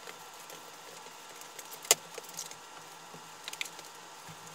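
Plastic lid of a FoodSaver vacuum sealer being shut with one sharp click about two seconds in, amid faint rubbing of a disinfecting wipe over the sealer and a wooden countertop. A couple of lighter taps follow about a second and a half later.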